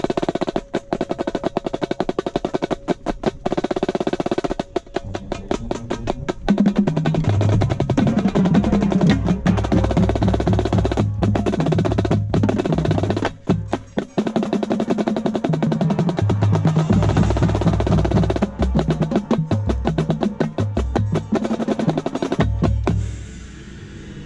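Marching snare drum played with sticks in a fast, dense pattern with rolls. Lower pitched notes from the rest of the ensemble join about six and a half seconds in, and the playing stops near the end.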